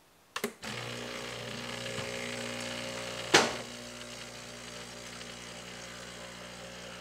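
Breville Barista Express's pump running steadily as water flushes through the empty group head into a glass. It starts with a click about half a second in, and there is one sharp knock a little over three seconds in.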